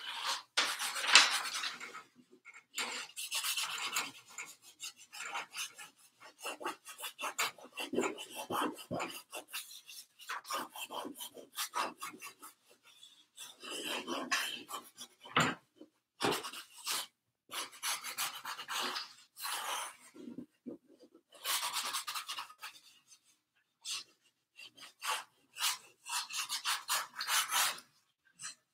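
Paint being scrubbed and rubbed onto a stretched canvas, a run of short scratchy strokes in irregular bursts with brief pauses between them.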